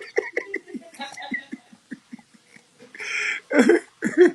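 Indistinct voices: short, broken bits of talk over a livestream connection, with a brief burst of hissy noise about three seconds in.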